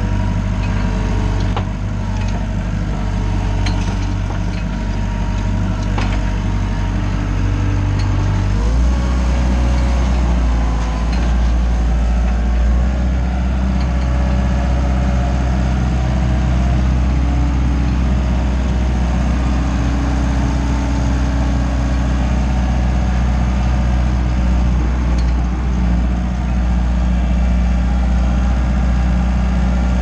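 Wacker Neuson 901s skid steer's diesel engine running steadily, heard from inside the operator's cab while the machine drives. About nine seconds in, its low note drops deeper and stays there. A few light knocks come in the first six seconds.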